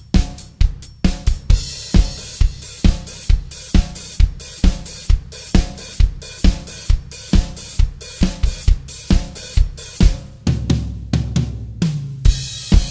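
A drum kit playing alone: a steady beat of bass drum and snare under eighth-note hi-hat, the hi-hat opening and closing on the off-beats. Near the end a short fill with low ringing drums leads into a crash cymbal.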